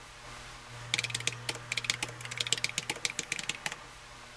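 Keyboard-typing sound effect: a run of quick, uneven key clicks starting about a second in and lasting under three seconds, over a faint steady low hum.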